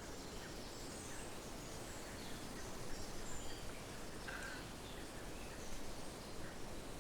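A stream flowing beside the tent, a steady even rush, with scattered short high chirps over it.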